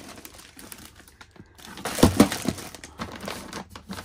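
Small parts and plastic packets being rummaged through in a toolbox drawer: crinkling and light clicking, with a louder knock about two seconds in.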